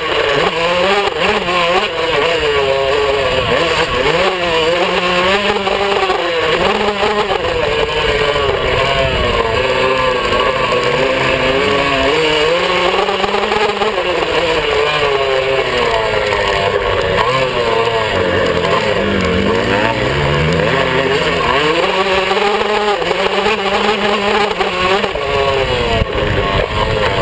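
Yamaha YZ125 two-stroke single-cylinder dirt bike engine revving up and easing off over and over as the bike is ridden, heard close from the handlebars. The pitch rises and falls constantly, with one longer drop and climb about two-thirds of the way through.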